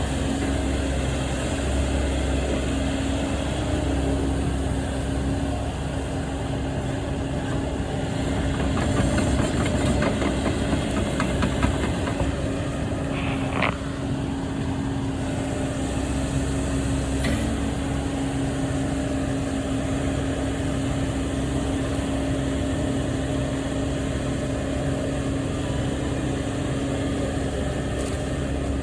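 An engine running steadily at a constant speed, with a few faint clicks about halfway through.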